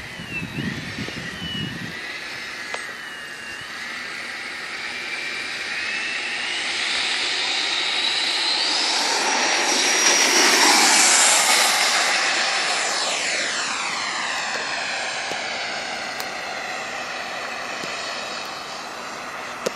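Freewing F-16 RC model jet's high-blade-count electric ducted fan whining like a turbine on its takeoff run. The whine rises in pitch and loudness, is loudest as the model passes about ten seconds in, then drops in pitch and fades as it climbs away.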